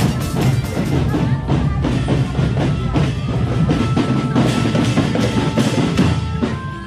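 Loud music carried by a steady drum beat, about two strokes a second.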